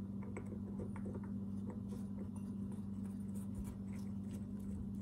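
Light metal clicks and taps of a chainsaw clutch drum and sprocket being handled and slid onto the crankshaft by gloved hands, over a steady low hum.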